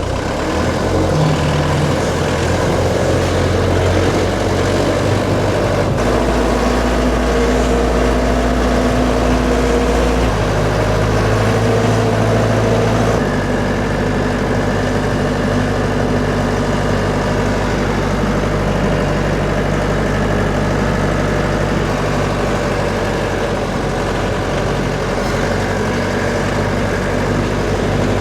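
Tractor engine running steadily, its note stepping to a new pitch about 6, 10 and 13 seconds in.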